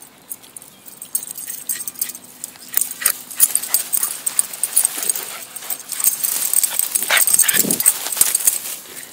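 A dog moving about in long grass right at the microphone: rapid jingling and rustling clicks, thickest in the second half, with a short low sound from the dog a little after seven seconds.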